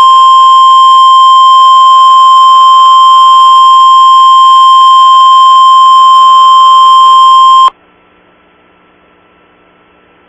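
Emergency alert attention tone: a single steady, loud, high beep at about 1050 Hz, the NOAA Weather Radio warning alarm tone that comes before a warning message. It cuts off suddenly about eight seconds in, leaving a faint steady hiss.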